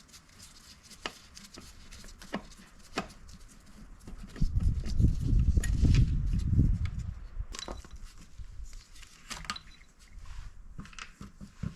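Scattered clicks and knocks of hand tools and parts being handled as a dirt bike's air box is removed, with a loud low rumble lasting a couple of seconds in the middle.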